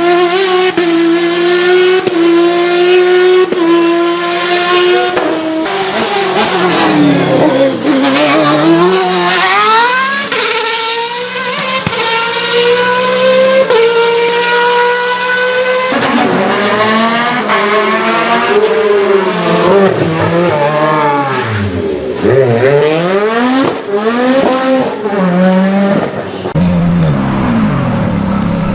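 High-revving car engines in a run of separate clips, each note climbing through the revs and dropping back at gear changes or passing by, with sudden switches from one car to the next about every ten seconds.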